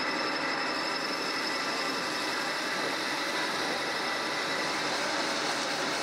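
Metal-turning lathe running steadily, spinning a steel shaft that is being polished with abrasive cloth: an even mechanical hum with several steady high whining tones over a hiss.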